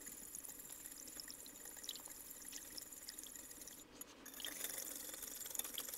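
Wire whisk beating an egg-and-milk custard in a ceramic baking dish: faint wet swishing and sloshing with light ticks of the wires. There is a brief pause about four seconds in, then more whisking.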